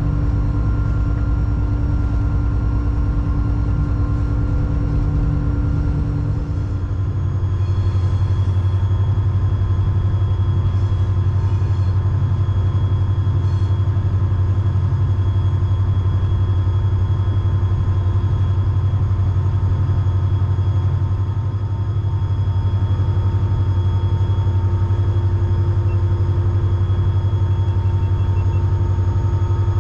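EMD SD40-3 diesel-electric locomotive, its 16-cylinder EMD 645 two-stroke diesel running as the train moves along, a steady low rumble. About six and a half seconds in the engine note shifts and settles lower.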